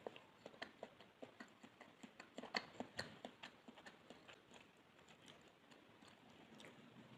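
Faint close-miked chewing of pandan sponge cake: a string of small, irregular wet mouth clicks, a few louder ones about two and a half to three seconds in.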